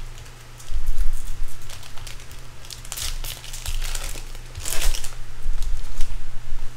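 Plastic wrapper of a baseball card pack crinkling and tearing as it is opened, loudest about three seconds in and again near five seconds in.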